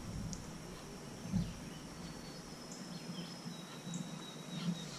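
Quiet riverside ambience: faint high bird chirps and thin, steady insect tones over a low hiss, with one soft thud about one and a half seconds in.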